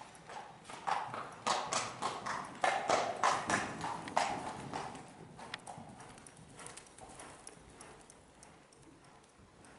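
Hoofbeats of a horse cantering on a soft arena surface, a quick uneven run of thuds. They grow loudest on the approach and take-off over a jump about four seconds in, then fade as the horse canters away.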